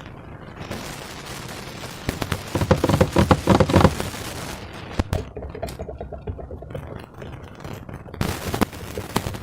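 Slime being squeezed and worked by hand, its trapped air bubbles popping in rapid, crackling clicks that come thickest and loudest a couple of seconds in, with a few single sharp snaps later.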